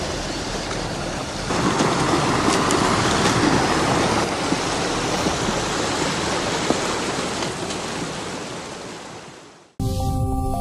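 Steady outdoor rushing noise on a phone recording. It gets louder about a second and a half in, then fades out near the end, where synthesized outro music cuts in.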